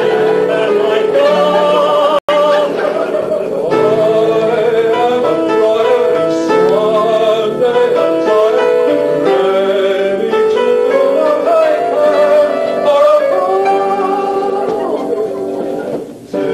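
Mixed chorus of men's and women's voices singing together in operatic style, with a momentary dropout in the sound about two seconds in.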